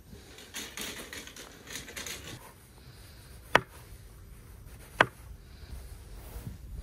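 Small kitchen knife slicing button mushrooms on a wooden board: two sharp knocks of the blade striking the board, about a second and a half apart, after a couple of seconds of rustling.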